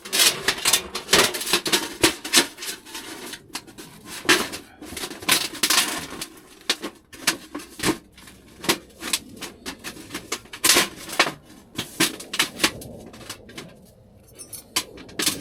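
Metal cookware and utensils being handled: irregular clinks, knocks and scrapes of pots, lids and cutlery.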